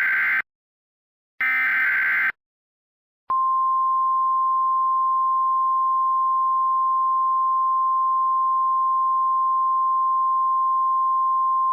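Emergency Alert System tones: the end of a SAME header, two short bursts of buzzy digital data, then about three seconds in a steady single-pitch attention tone of about 1050 Hz, the NOAA Weather Radio–style tone, held without a break.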